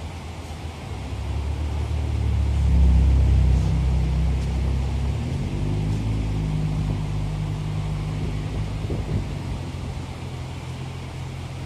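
A low engine hum builds to its loudest about three seconds in, shifts in pitch a couple of seconds later, then runs on steadily and eases off a little.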